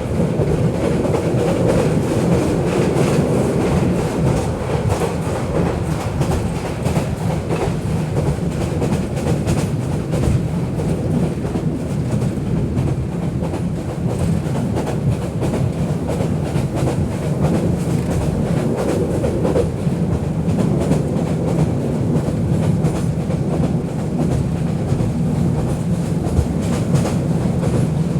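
Bangladeshi local train running steadily: a continuous heavy rumble, with the wheels clicking over the rail joints again and again.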